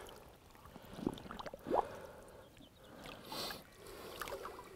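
Lake water sloshing and trickling softly around an angler's hands and waders as a large common carp is eased back into the water, with a brief splash a little past the middle.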